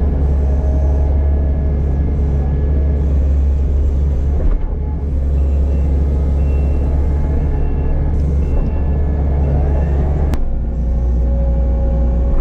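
Skid steer engine running steadily, heard from inside the cab while the loader picks up a bale grapple. The engine note dips briefly about four and a half seconds in and changes again about ten seconds in.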